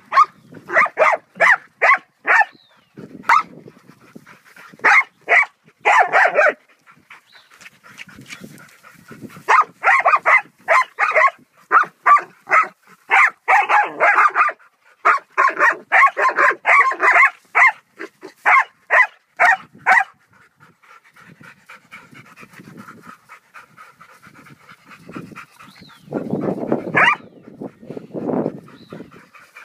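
Dogs barking excitedly in rapid volleys of short, sharp barks at a turtle they have cornered, with panting in the gaps. The barking stops about two-thirds through, leaving panting, then a short bout of low, rough noise near the end.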